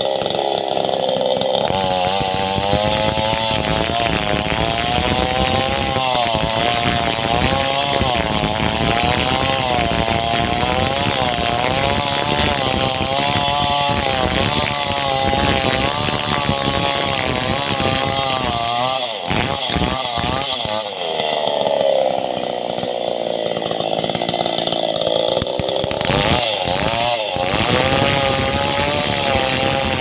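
Chainsaw running under load as it rips lengthwise through a log to saw it into planks, its engine pitch wavering as the chain bites into the wood. The engine speed shifts briefly a few times about two-thirds through.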